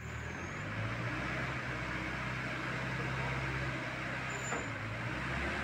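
Steady low mechanical hum, with a constant noisy wash above it.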